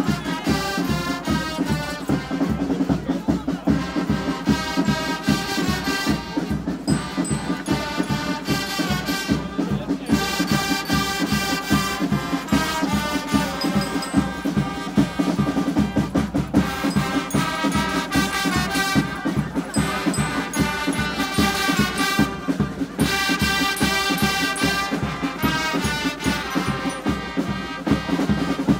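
A brass band with drums plays a lively carnival tune with a steady beat.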